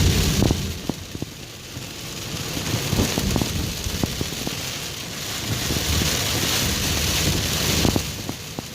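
Heavy rain on a moving car, heard from inside the cabin: a steady hiss that swells and eases, with many scattered sharp drop hits.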